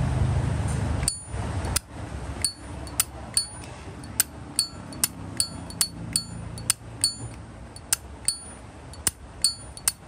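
Metal lid of a Zippo lighter clicking open and snapping shut over and over, about two sharp metallic clinks a second with a brief high ring, starting about a second in.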